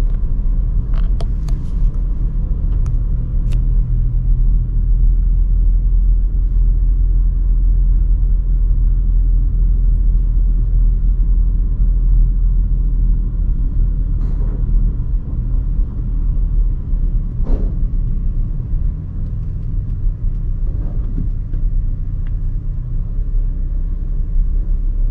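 Steady low rumble of a car driving slowly, heard from inside the cabin: engine and tyre noise, with a few faint ticks in the first few seconds.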